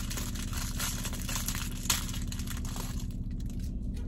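Plastic fortune-cookie wrapper crinkling as it is torn open and handled, with one sharp snap about two seconds in, over a steady low hum.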